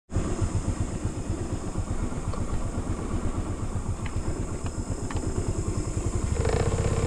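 Motorcycle engine running at low revs with an even pulsing beat. A little over six seconds in, the engine note picks up and steadies as it speeds up.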